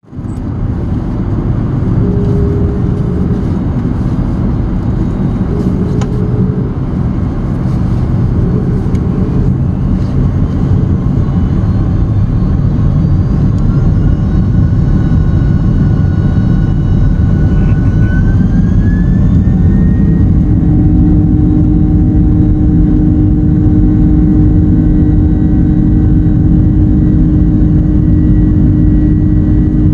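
A jet airliner's turbofan engines heard from inside the cabin over a loud, steady rumble. Several whining tones climb between about twelve and twenty seconds in, then hold steady as the engines spool up to takeoff thrust.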